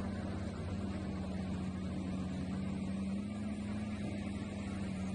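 Diesel engine of a wheel loader running at a steady note while the machine pushes sand with its bucket.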